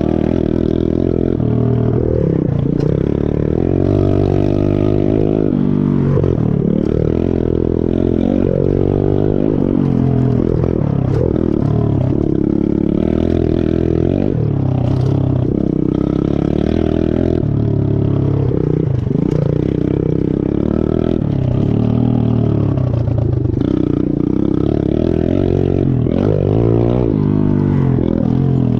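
Chinese pit bike's small single-cylinder four-stroke engine running loud while being ridden, revving up and dropping back over and over as the throttle is opened and closed.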